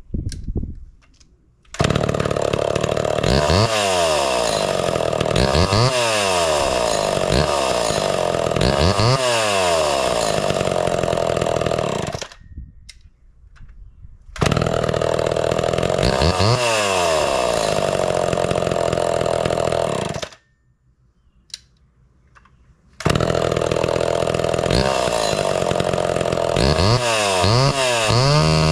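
Homelite Super XL Automatic two-stroke chainsaw with a new-old-stock muffler, running and revved up and down several times, each rev a rise and fall in pitch. The sound cuts off abruptly twice for a couple of seconds and comes straight back at full level.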